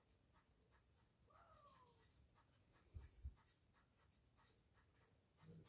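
Near silence: faint rapid ticking, about four ticks a second, with a brief falling whine about a second in and two soft low thumps a little after the middle.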